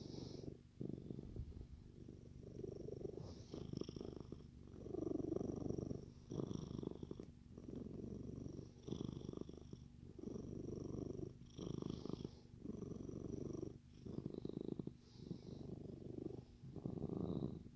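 Siamese cat purring steadily, the low buzz swelling and fading with each breath, about once a second.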